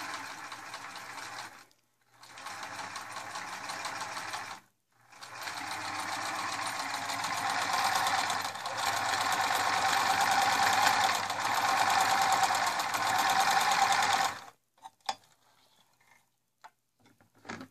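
Electric sewing machine stitching a seam in three runs: two short ones, then a longer, louder one that stops about 14 seconds in. A few light clicks follow near the end.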